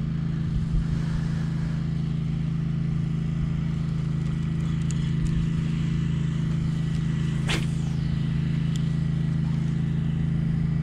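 Steady low drone of a motor running at an even pitch throughout, with one faint sharp click about seven and a half seconds in.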